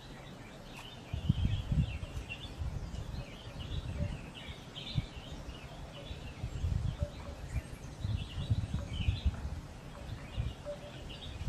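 Small birds chirping again and again, with an uneven low rumble that starts about a second in.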